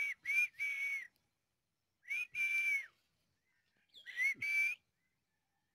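A person whistling to call dogs: three whistled calls about two seconds apart, each a short rising note followed by a longer steady, high note.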